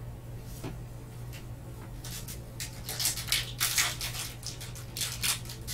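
A foil trading-card pack wrapper being crinkled and torn open by gloved hands, in irregular crackly bursts that start about two seconds in and are loudest around the middle and again near the end. A faint low steady hum runs underneath.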